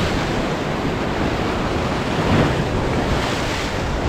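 Ocean surf breaking and washing over jetty boulders, with wind on the microphone. The wash swells a little over two seconds in and again later as waves hit the rocks.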